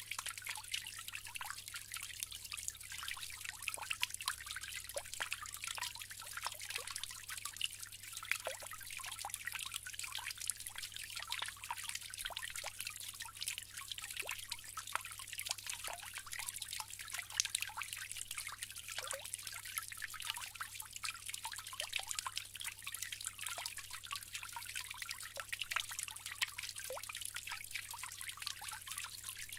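Water trickling steadily from a bamboo fountain spout into its basin: a constant patter of small splashes and drips, with a faint steady low hum underneath.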